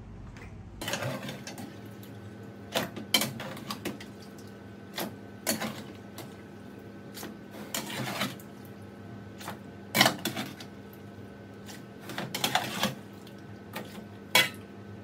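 Metal clatter as raw chicken pieces are scooped with a round metal lid and tipped from an aluminium colander into plastic buckets: irregular knocks and scrapes, about a dozen, over a steady hum.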